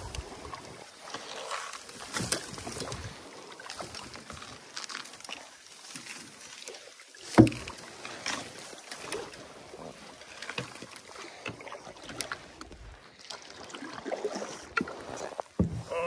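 Wooden knocking sticks swishing and tapping through wild rice stalks alongside a canoe, with irregular rustling of stalks and light clicks. One sharp knock about seven seconds in.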